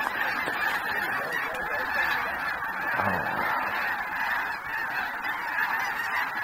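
Continuous, dense chorus of honking from a huge flock of snow geese, hundreds of calls overlapping into one steady din.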